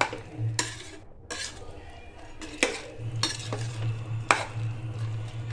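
A metal ladle stirring chicken pieces in thick masala gravy in an aluminium pressure cooker pot: wet scraping, with several sharp clinks of the ladle against the pot's side.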